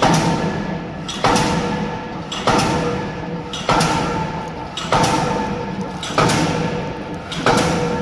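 K25 diesel pile hammer driving a spun concrete pile: a steady train of heavy blows, about one every 1.25 seconds, seven in all, each with a short metallic ring.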